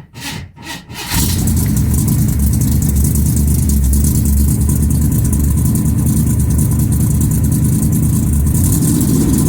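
1983 Ford Thunderbird engine being started: a few short cranking strokes, then it catches about a second in and runs steadily and loudly.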